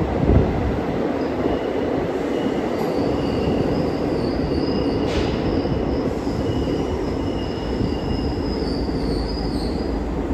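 Passenger train running through a tunnel: a steady rumble of wheels on the rails, with a high squeal from the wheels that comes and goes. A single thump sounds about half a second in.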